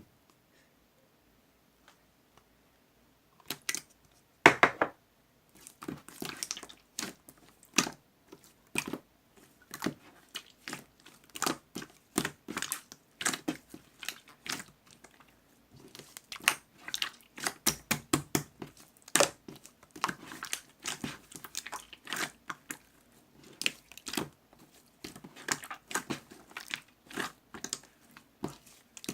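Close-up crackling and crunching: many short, irregular crackles in quick succession, starting a few seconds in.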